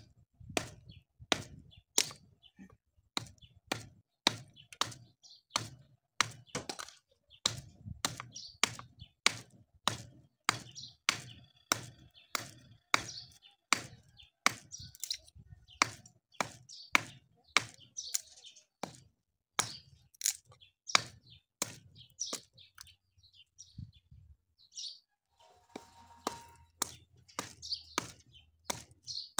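Hammer blows on a steel blade driven into a wooden block screwed to a cow's hoof, splitting the block away. Sharp knocks come about two a second, with a brief pause about two-thirds of the way in.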